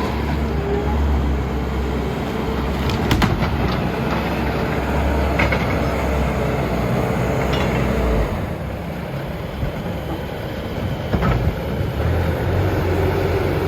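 Bobcat skid steer's diesel engine running steadily, with sharp metal clanks and knocks from the machine working through trash. The engine eases off about eight seconds in and picks back up near the end.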